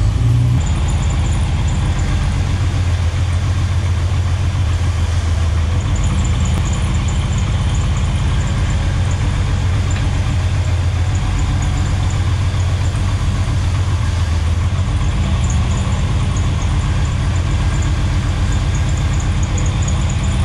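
1988 Jeep Wrangler YJ's 4.2-litre inline-six engine idling steadily, freshly started.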